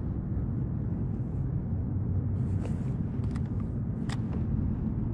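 Steady low rumble of open-water background noise on the camera microphone, with a few light clicks or taps a little past the middle.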